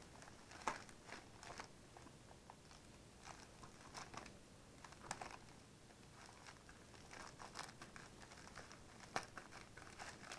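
Faint crinkling and rustling of a plastic parcel mailer being handled and cut open with scissors, in scattered short crackles.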